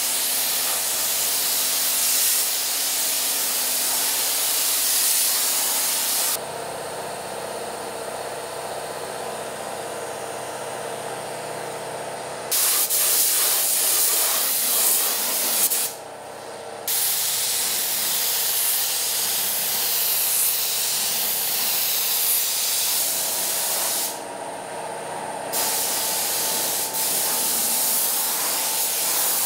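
Compressed-air gravity-feed spray gun hissing as paint is sprayed onto a car body. The hiss stops for about six seconds some six seconds in, and twice more briefly later, leaving a steady machine hum underneath.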